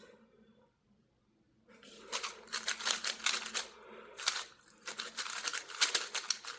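HudongCube Light magnetic 3x3 speed cube being turned rapidly during a solve: a dense, fast run of plastic clicks and clacks that starts about two seconds in.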